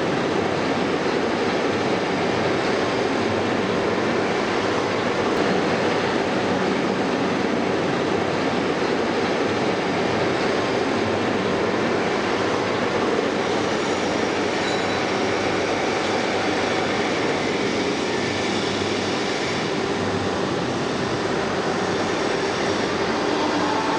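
Steady machinery noise, an even hiss and rumble with no clear rhythm, holding level throughout.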